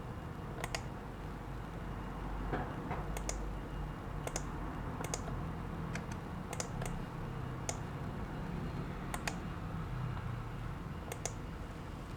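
Irregular sharp clicks of a computer mouse and keyboard being worked, about a dozen in all, over a low steady hum.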